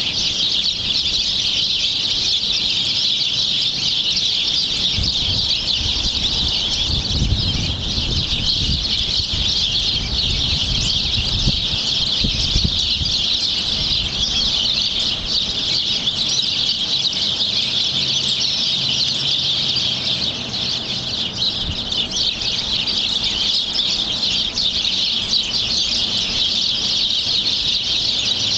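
Many small birds chirping at once in a dense, continuous chatter, with some low rumbling for a few seconds near the middle.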